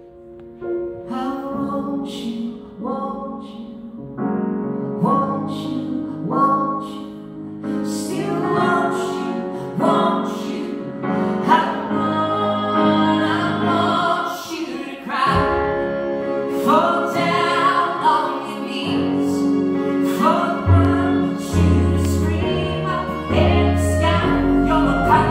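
Live grand piano played in steady chords with singing over it. A violin is bowed near the end, and deep bass notes come in during the last few seconds.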